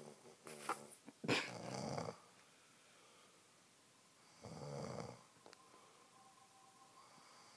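Snoring from a sleeper: two loud, rasping snores about three seconds apart, the first preceded by a shorter noise.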